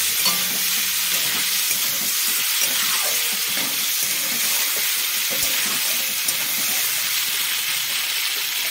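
Prawns frying in hot oil in a kadhai, a steady sizzling hiss.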